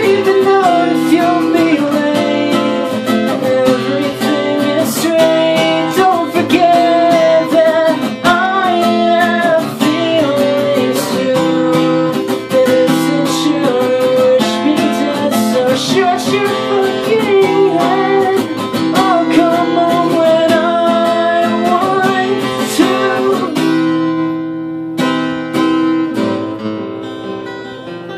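A man singing an indie rock song over a strummed steel-string acoustic guitar. A little before the end the singing stops and the guitar plays on alone, softer and fading.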